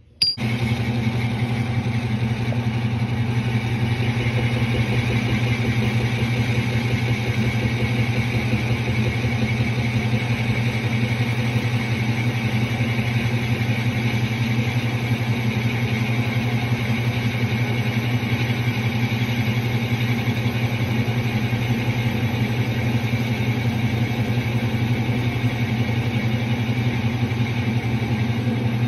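Small benchtop metal lathe switched on and running at a steady speed, a constant hum with a higher whine from its motor and gearing, as it turns an aluminium part for a facing cut.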